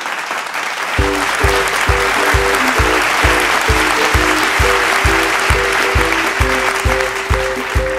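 Audience applauding, with music starting about a second in: a steady beat about twice a second under a short repeating melody.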